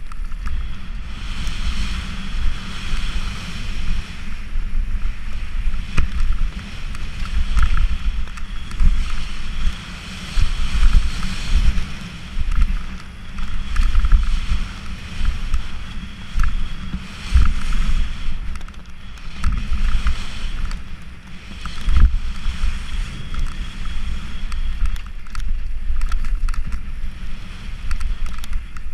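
Wind buffeting an action camera's microphone over the rumble and rattle of a mountain bike descending a fast dirt trail, with a few sharp knocks from bumps.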